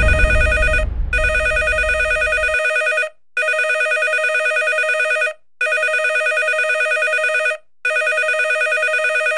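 Electronic telephone ringer ringing: a warbling, multi-tone ring repeating in rings of about two seconds, each followed by a short break. Under the first rings there is a low rumble that stops about two and a half seconds in.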